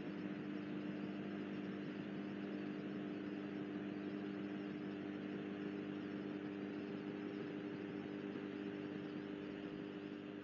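A steady engine drone with a low, even hum, easing off near the end.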